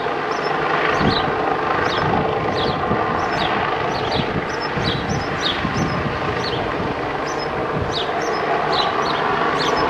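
Police helicopter flying overhead, its rotor and engine noise a steady rushing drone. Short high chirps repeat over it about twice a second.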